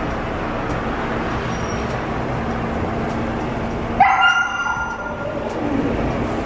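A husky gives a sudden loud, high yelping cry about four seconds in, rising in pitch and fading over about a second, followed by a shorter, lower whine. Under it runs a steady rushing noise from the pet-wash station's hose.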